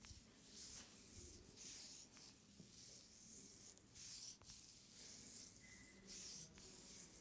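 Faint, repeated soft swishing of oiled hands rubbing and stroking skin during a leg massage.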